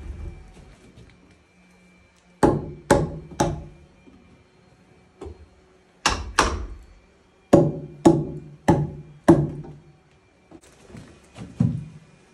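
Hammer blows on a log wall, in groups of three, two and four strikes about half a second apart, then a few lighter taps near the end; each blow rings briefly.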